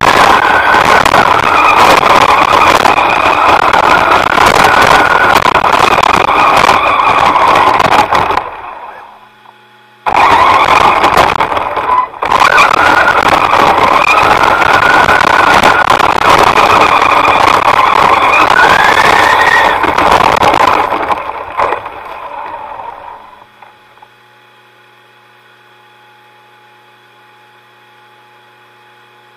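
FPV quadcopter's motors and propellers running loudly, their whine rising and falling in pitch with the throttle. The sound drops away about eight seconds in, comes back abruptly a second and a half later, then dies away after about twenty-two seconds, leaving only a faint steady hum.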